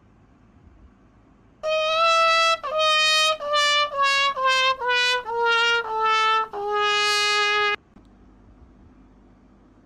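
A brass instrument, trumpet-like, plays a comic descending run of about nine notes. Each note is a step lower than the last, and the final low note is held for about a second.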